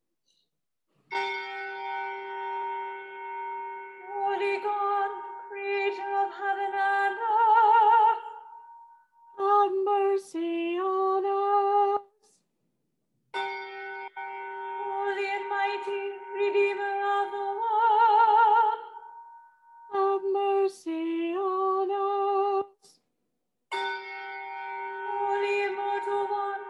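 A solo female voice singing an unaccompanied chant, holding long notes with vibrato, in three similar phrases, each broken by short pauses.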